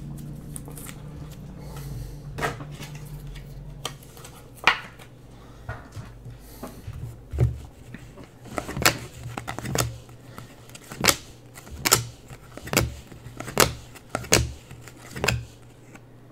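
A small stack of trading cards flipped through by hand, each card sliding off the stack with a sharp snap. After a few scattered snaps, they come steadily, a little more than one a second, in the second half. A low hum stops about four seconds in.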